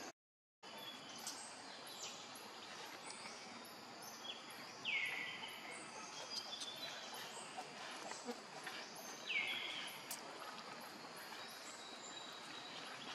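Outdoor forest ambience: a steady hiss with repeated high chirps of birds and insects. Two loud, short calls sweep down in pitch, about five and nine seconds in. The sound cuts out completely for about half a second at the start.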